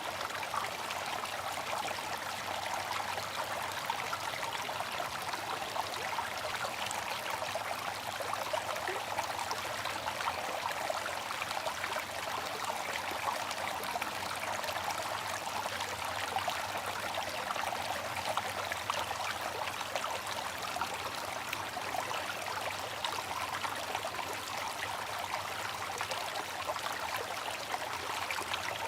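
Water running steadily from a bamboo fountain: a continuous trickling and splashing that holds unchanged.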